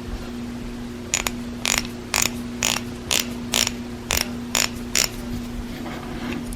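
A Plumb ratchet wrench being worked back and forth, its pawl clicking in about ten short strokes, roughly two a second.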